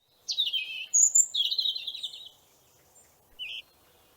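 A bird chirping: a run of quick, high calls in the first two seconds, then one short chirp near the end.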